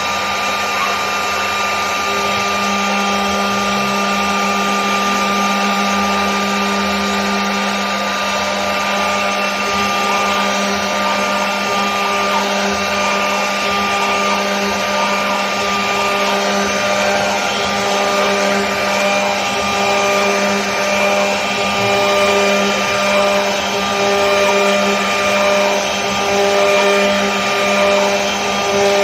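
CNC router spindle running steadily as it carves a wooden panel: a constant whine over the rush of the cutter in the wood, swelling slightly in loudness near the end.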